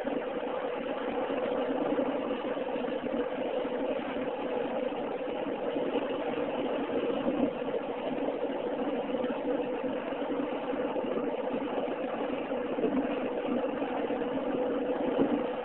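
Steady drone of a car driving at road speed, heard from inside the cabin: engine and tyre noise.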